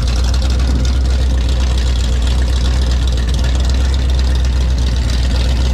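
Nissan 350Z's VQ35DE V6 engine idling steadily: a deep, even drone with no revving.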